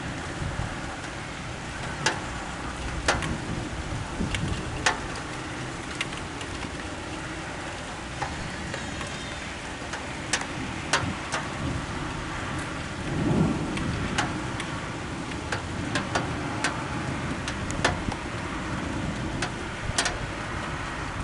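Steady rain during a thunderstorm, with sharp drops tapping on a surface close by. A low rumble of thunder swells about halfway through.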